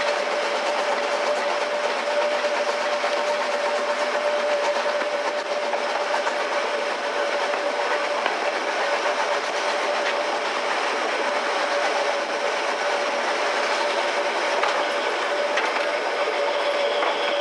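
Metre-gauge steam train's coaches running along the track, a steady rushing rumble with a steady tone held throughout.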